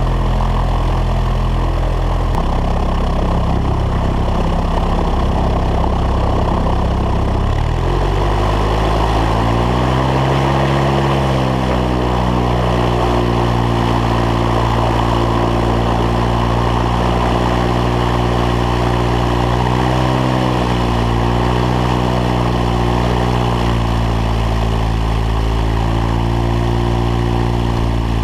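Light aircraft's piston engine and propeller running at taxi power, heard from a camera under the wing. The engine note climbs about eight seconds in and holds at the higher speed, with slight dips later on.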